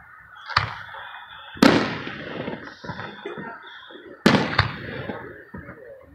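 Aerial fireworks shells bursting: four sharp booms, one about half a second in, a big one just after a second and a half, and two close together just past four seconds. The two loudest trail off in a long fading rumble.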